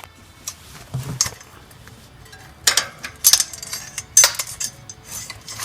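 Metal clinks and clanks of a hand wrench working on a bicycle wheel's axle nuts and washers, four louder strikes in the second half among a few softer ones.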